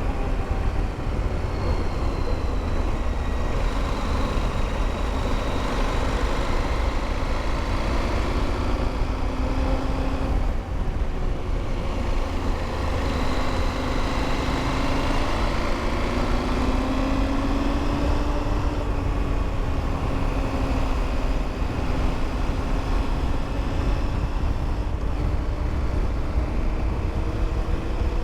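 KTM motorcycle engine running under way, heard with heavy wind noise on an in-helmet microphone, its pitch slowly rising and falling as the revs change.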